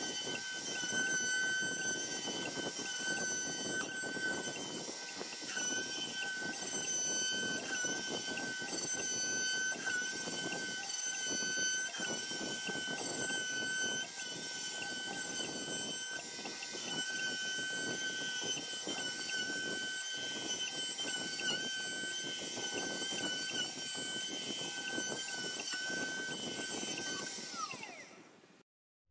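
CNC router's trim-router spindle running a compression bit through a cedar fence picket: a steady high whine over the noise of the cut, its pitch dipping briefly now and then as the cut loads it. The sound fades out near the end.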